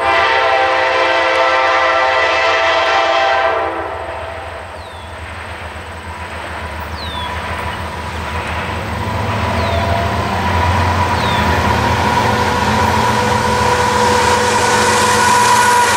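Diesel locomotive air horn sounding one long blast of about three and a half seconds, then the approaching Canadian Pacific freight train's locomotive engines and wheels on the rails growing steadily louder as it nears.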